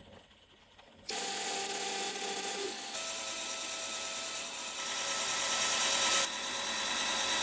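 Metal lathe running and cutting the gear knob, starting suddenly about a second in as a loud, steady hiss with a faint whine.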